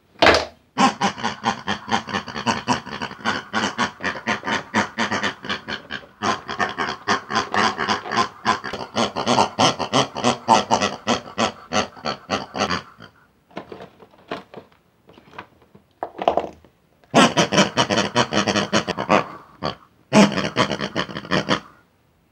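Pig-like grunting and oinking, a fast run of pulses lasting about twelve seconds, then a few short grunts and two more runs near the end. It serves as the voices of the toy pig characters.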